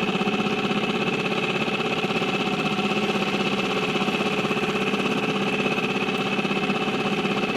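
Small Seatan outboard motor running steadily at an even speed, with a fast, regular engine pulse.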